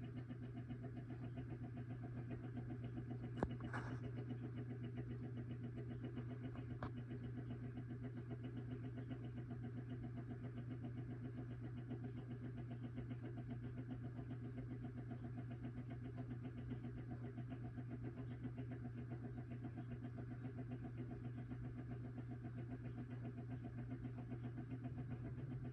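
1930s Sessions electric wall clock's synchronous motor humming steadily as it runs on mains power, a low even hum with no ticking. A single sharp click about three and a half seconds in, and a fainter one a few seconds later.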